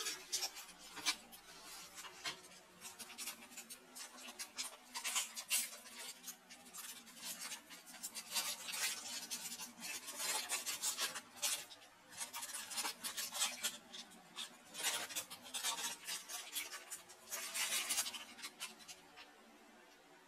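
Rustling and crinkling of plastic packaging, handled with cotton-gloved hands as a handheld recorder is unwrapped: a dense run of short scratchy rubbing noises that dies away about a second before the end.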